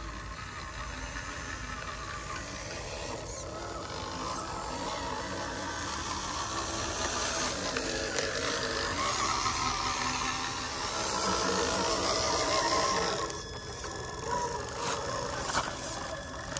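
Small electric motor and gear train of a radio-controlled scale panel truck whirring and rattling as it drives, getting louder toward a peak and cutting back suddenly about 13 seconds in.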